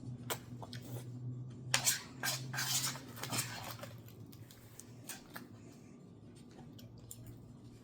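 Eating sounds: utensils clinking and scraping against dishes, busiest about two to three and a half seconds in, with scattered lighter clicks around them.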